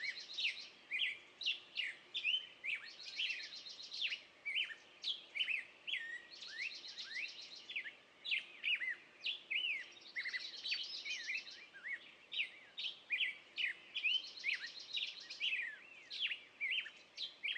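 Songbirds singing: a steady stream of short sliding chirps, with a fast high trill recurring about every three and a half seconds.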